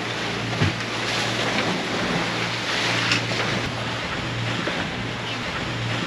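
Sea water rushing and splashing along a Leopard 45 catamaran's hull under way, with wind on the microphone and a steady low hum underneath. A brief knock comes about half a second in.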